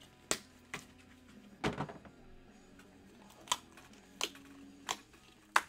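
Scattered sharp clicks and light taps, about seven in all, from trading cards and plastic card holders being handled on a tabletop.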